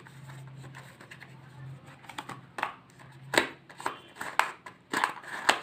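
Cardboard and paper packaging from a phone box being handled and opened: rustling with a run of short, sharp crinkles and taps, starting about halfway through and getting busier toward the end.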